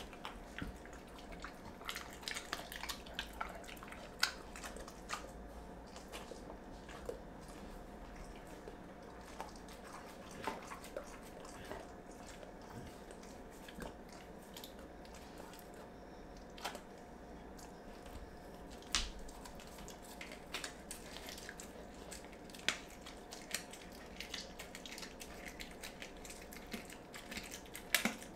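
A dog eating raw food: irregular wet smacking, chewing and licking clicks, with pauses between bites.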